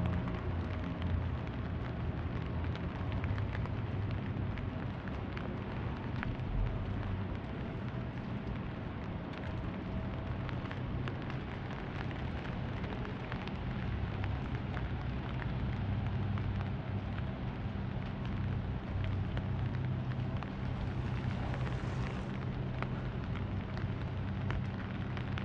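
Rain ambience on a wet city street: a steady patter of rain and scattered drips, over a low steady hum, with a brief swell of hiss about three-quarters of the way through.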